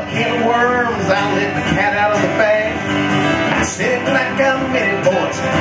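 Live country song: an acoustic guitar and an electric guitar strumming together while a man sings the chorus.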